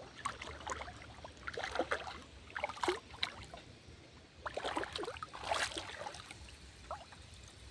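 Shallow pond water sloshing and splashing in irregular strokes as someone wades through it, with louder splashes about three seconds in and again around five and a half seconds.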